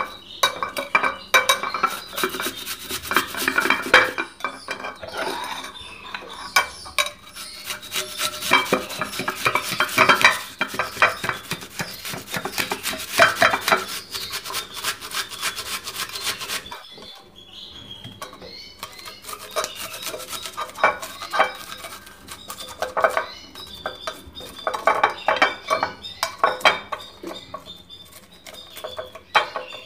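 Red onion being grated by hand on a kitchen grater: runs of rapid rasping strokes, with a brief pause a little past halfway.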